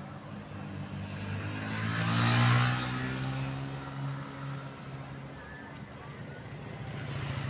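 A road vehicle driving past close by: a low engine drone and tyre noise build up, peak about two and a half seconds in, then fade as it moves away. No horn is sounded.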